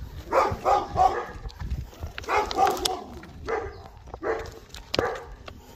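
Dogs barking in repeated short bouts: a rapid run of barks at the start, another about two seconds in, then single barks spaced about a second apart.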